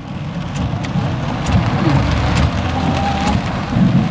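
Heavy rain falling on a car's roof and windshield, heard from inside the cabin, with separate drops ticking on the glass over a steady low rumble.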